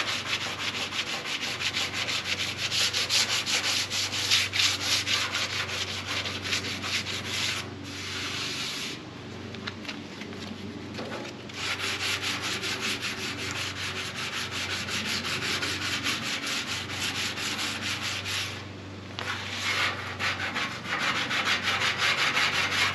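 Hand sanding with 220-grit sandpaper on a sanding block, rubbed briskly back and forth along the groove of a painted metal fender, with two short pauses. The paint is being scuffed for primer, not taken down to bare metal.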